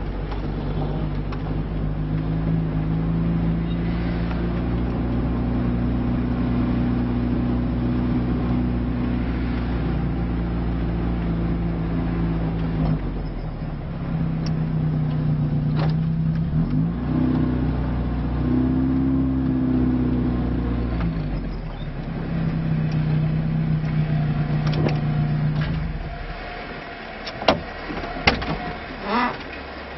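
Lada Niva engine working under load on an off-road climb, its revs rising and falling several times. Near the end the engine drops away and a few sharp knocks are heard.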